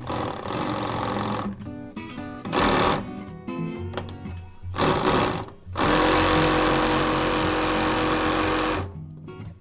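Vintage belt-driven sewing machine stitching a hat. It runs in short bursts of about a second, then a longer unbroken run of about three seconds near the end.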